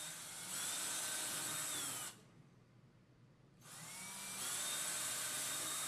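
Power drill boring pilot holes for wall anchors, twice: each run spins up with a rising whine and then holds steady for a couple of seconds. The first run stops about two seconds in, and the second starts about three and a half seconds in.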